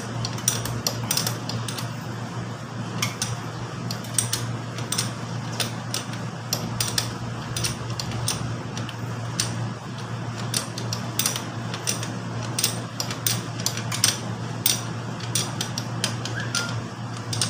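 Metal wrench clicking and clinking against bolts while motorcycle brake bolts are snugged up by hand: many sharp, irregular metallic taps over a steady low hum.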